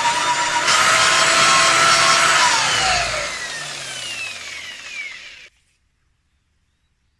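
Power tool with a buffing wheel running steadily, then switched off about two and a half seconds in, its whine falling in pitch as it winds down, until the sound cuts off suddenly near the middle.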